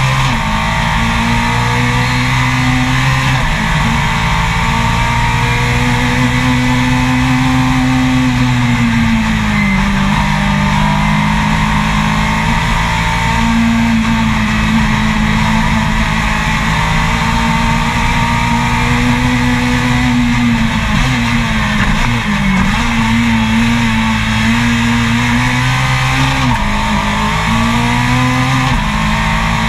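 Racing car engine at full throttle, its note holding high and then dipping and climbing again a few times as the driver lifts and changes gear.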